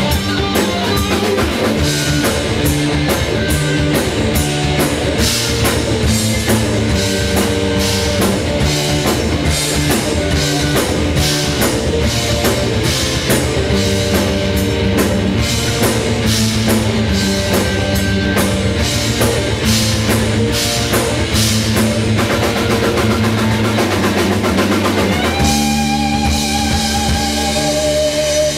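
Live rock band playing loud electric guitars over a busy drum-kit beat. About three seconds before the end the drums stop and the guitars hold long sustained notes.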